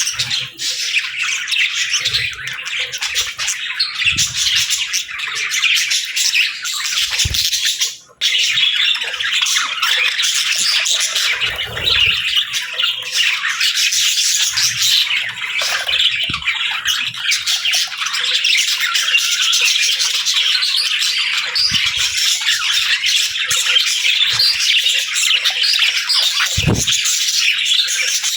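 A group of pet parakeets and lovebirds chirping and squawking in dense, continuous high-pitched chatter, with a brief break about eight seconds in.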